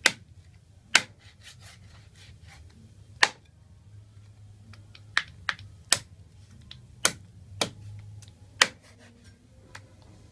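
A cleaver chopping through a raw chicken into a wooden cutting board: about nine sharp chops at uneven intervals, several coming in quick succession in the middle, with soft rubbing and handling of the meat between them.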